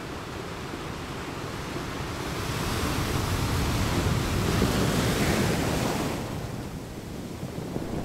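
Ocean surf: a steady rush of waves that swells over a few seconds in the middle, eases, and builds again near the end.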